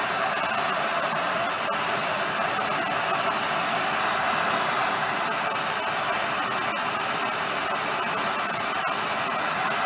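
Handheld gas torch burning with a steady rushing hiss, its flame heating a rusted nut on a transmission case to expand it and free it.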